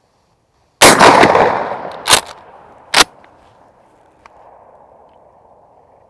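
A Mossberg Maverick 88 12-gauge pump shotgun firing one rifled slug about a second in, the report rolling away in a long echo. About a second and two seconds later come two sharp clacks, the pump action being racked back and forward to chamber the next slug.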